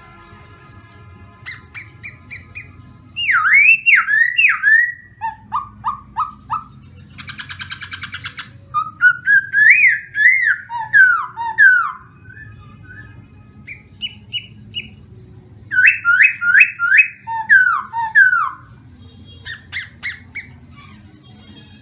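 Caged laughingthrush singing a varied song: loud phrases of fast, sweeping whistled notes, some phrases of quick repeated notes, separated by short pauses. About seven seconds in, a harsh rattling chatter breaks in between the whistles.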